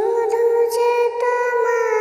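A high voice singing a slow tune in long held notes: the ghost's song rising from the haunted well.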